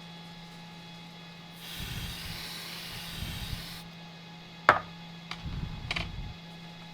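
Can of butane lighter fuel sprayed onto a circuit board in one steady hiss of about two seconds, chilling the board for thermal fault-finding. A sharp click follows about a second later, then a few light knocks.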